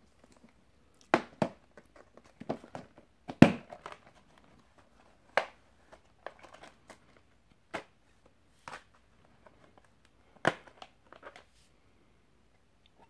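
Plastic Blu-ray case and its hinged disc trays being handled and opened: a series of sharp plastic clicks and crackles, the loudest about three and a half seconds in, as the case is opened and discs are worked off their hubs.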